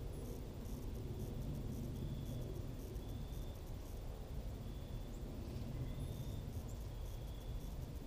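Evening insects calling, likely crickets: a short high, even-pitched trill repeats about once a second, over rapid high-pitched ticking from other insects and a steady low background rumble.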